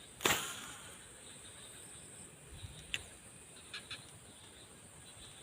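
Steady high-pitched drone of crickets or other insects, with one loud sudden knock just after the start and a few faint clicks later on.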